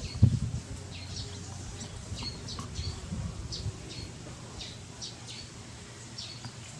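Small birds chirping: short, high, falling chirps, roughly two a second. There is a low thump about a quarter of a second in.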